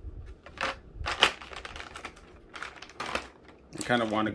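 Several separate sharp clicks and taps of hard plastic as action-figure parts are handled.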